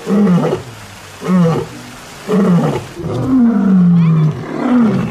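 Lion roaring: a series of short calls about one a second, each falling in pitch, with one longer falling call about three seconds in.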